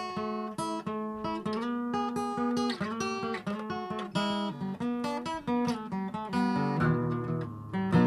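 Acoustic guitar picked note by note in the opening of a blues song, with a fuller strummed chord ringing near the end.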